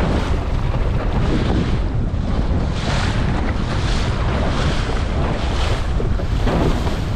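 Strong wind buffeting the microphone of a head-mounted GoPro in a steady heavy rumble, over the rush and splash of waves against a Laguna-Kombi+ sailing dinghy, coming in repeated washes every half second to a second.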